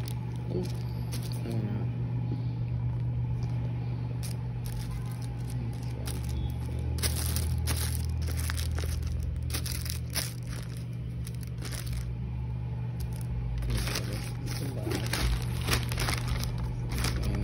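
Plastic mailer bag crinkling and rustling as it is handled and torn open, in irregular bursts that grow denser in the second half, over a steady low hum.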